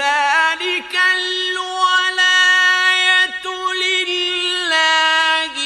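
A male Quran reciter's voice in slow, melodic tajweed recitation, holding one long drawn-out note with small ornamental turns and stepping down in pitch near the end, with added echo.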